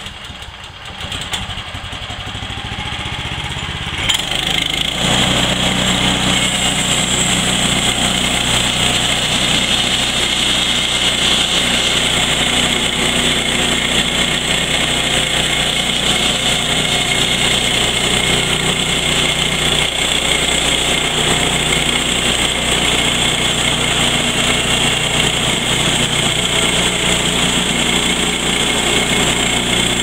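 Woodland Mills HM126 bandsaw sawmill's gas engine picks up, then jumps to full throttle about four seconds in and runs loud and steady as the band blade cuts a board off the cant.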